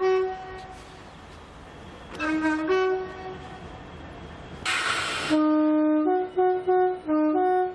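Two-tone train horn sounding a series of blasts on its high and low notes: a short high note, then a low-high pair, then a held low note followed by quick alternating high and low toots. A short, loud burst of hiss comes just before the last sequence.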